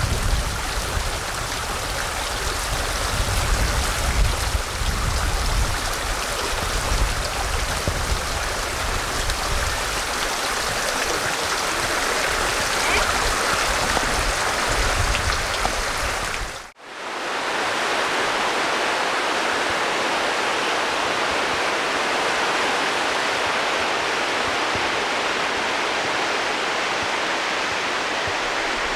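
Running water of a stream, a steady rush with a deep rumble underneath. About 17 seconds in it cuts off abruptly and another take of running water follows, with less rumble and more hiss.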